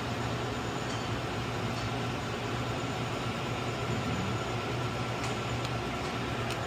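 Steady low hum of room noise, with a few faint light metal ticks from a pick working a snap ring in a transmission clutch drum.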